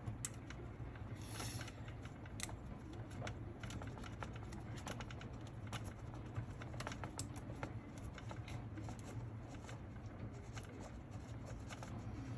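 Scattered light clicks and taps from small metal and plastic RC truck parts being handled while a front drive shaft is fitted into the front end. A steady low hum runs underneath.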